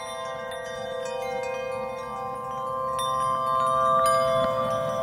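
Ambient background music: wind chimes tinkling over a held chord of steady tones, slowly growing louder.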